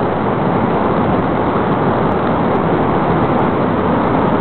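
Steady rushing of a river's whitewater rapids.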